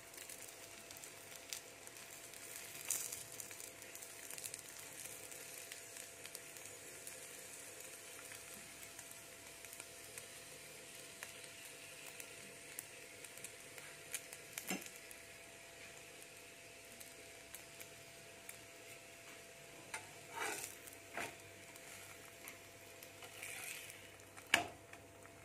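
Oiled parottas sizzling on a flat griddle with a steady, faint hiss, broken now and then by a sharp click or scrape of a metal spatula against the griddle; the loudest click comes near the end.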